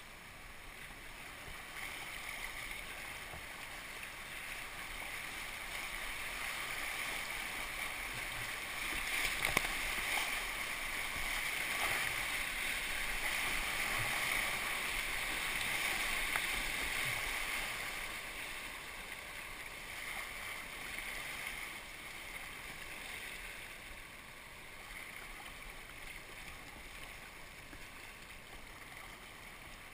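Rushing river water around a kayak running a small rapid, an even rush that grows louder through the middle and eases off as the boat reaches calmer water.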